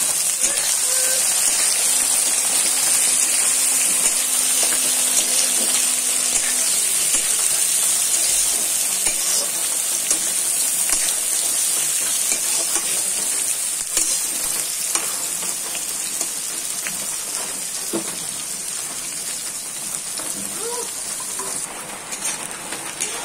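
Sliced onions frying in hot oil in an iron kadai: a steady, loud sizzle, with scrapes and taps of a metal spatula stirring them against the pan. The sizzle slowly dies down.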